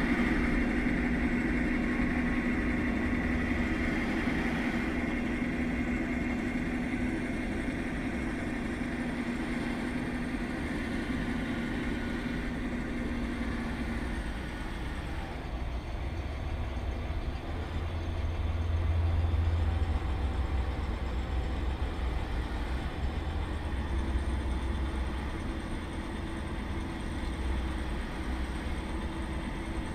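Self-built 1:8-scale hydraulic RC John Deere 9560R tractor running as it pushes sand with its dozer blade, a steady whine that fades out about halfway through as it drives away. A low engine rumble takes over and swells about two-thirds of the way in.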